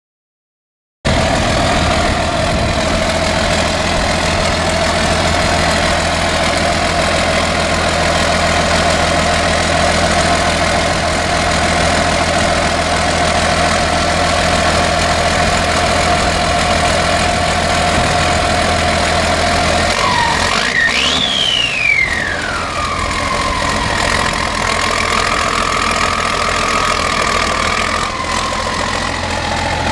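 Continental LDT-465-1D turbocharged multifuel engine of an M35A2 2.5-ton military truck idling steadily. About two-thirds of the way through, a high whine rises sharply and falls back before the idle settles again.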